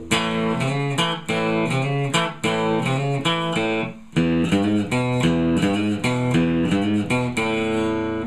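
Custom Telecaster electric guitar with Fender '62 reissue pickups being played: a quick run of picked notes and chords, low notes moving under higher ones, with a short break about four seconds in.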